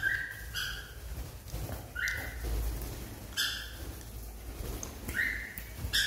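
Cockatiel calling while it flies loose: about six short, loud calls repeated at intervals of roughly a second.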